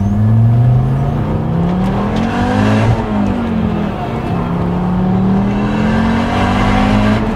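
Volvo S60R's turbocharged five-cylinder engine, fitted with a bigger turbo, pulling hard under full throttle and heard from inside the cabin. The revs climb, dip at a gear change about three seconds in, then climb again until another dip near the end.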